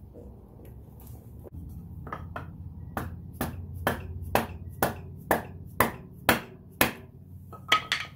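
Series of hammer taps, about two a second, driving a dirt bike's front axle shaft through the fork and wheel hub. The strikes begin about two seconds in, grow louder, and end with a quick cluster of knocks.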